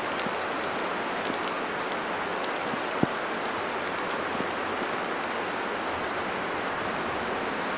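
Steady hiss of rain falling, with scattered close drops ticking and one sharper tick about three seconds in.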